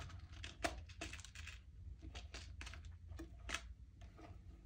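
Scattered light clicks and rattles of small bulb pins being picked through by hand, irregular and about a dozen in all, the sharpest about three and a half seconds in, over a low steady hum.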